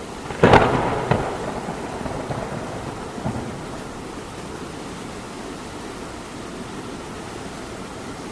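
A thunderclap: a sharp crack about half a second in, a second, smaller crack soon after, then a tail fading away over the next few seconds. Steady rain runs underneath.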